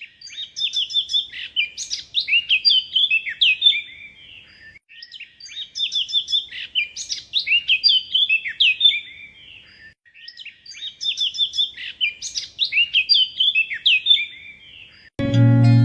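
A songbird singing a fast, varied string of high chirps and trills, the same phrase of about five seconds heard three times over.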